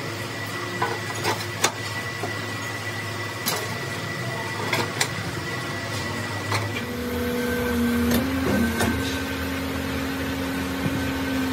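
Crankshaft grinding machine running with a steady motor hum and scattered sharp metallic clicks. About seven seconds in, a second, lower steady hum joins and the sound grows slightly louder.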